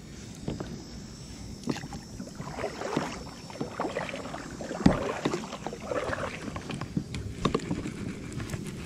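Kayak paddle strokes, water splashing off the blades in irregular bursts, with one sharp knock about five seconds in.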